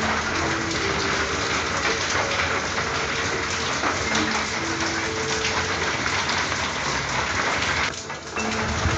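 Steady rain falling on a corrugated tin roof, a dense even hiss of drops, with a brief lull about eight seconds in.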